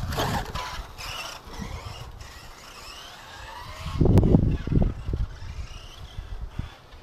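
Tekno SCT410 electric 4WD RC short course truck driven hard on grass, its motor whining in rising and falling glides as it speeds up and slows. About four seconds in there is a loud rumble with one sharp click.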